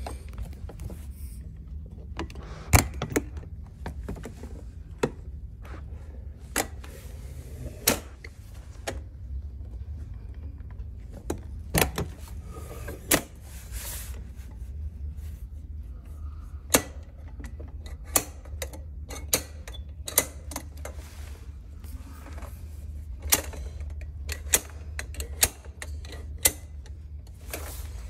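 Metal clicks and knocks from the black steel frame of a portable height-adjustable folding table as its legs are unfolded, extended and latched into place. The knocks come irregularly, some twenty in all, over a low steady hum.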